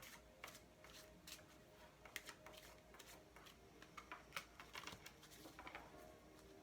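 Oracle cards being shuffled by hand, faint scattered clicks and light riffling of the card edges.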